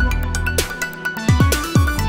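Electronic background music with a steady beat, deep bass hits that drop in pitch, and sharp percussion.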